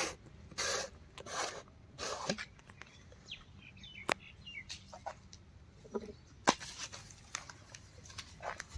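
A few short crunching rustles on dry leaf litter, then scattered light clicks and taps, with faint bird calls in the background.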